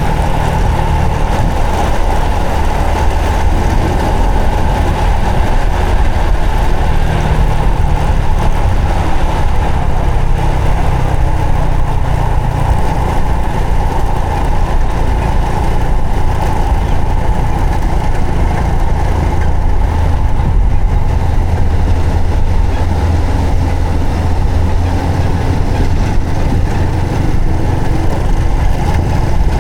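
Honda Supra X 125 FI motorcycle's single-cylinder four-stroke engine running steadily as the bike is ridden.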